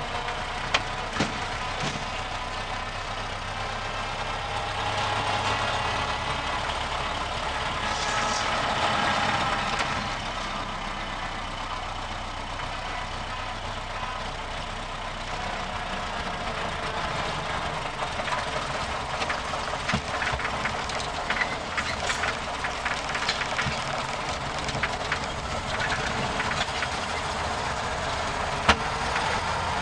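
1930 Ford Model A pickup's four-cylinder engine running, heard from inside the cab while driving slowly. It is loud because there is no air cleaner on the carburetor. It pulls harder for a few seconds near the start and then eases back, with scattered clicks and rattles.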